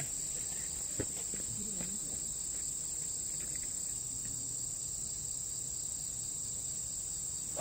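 Steady high-pitched insect chirring, with a faint tap about a second in.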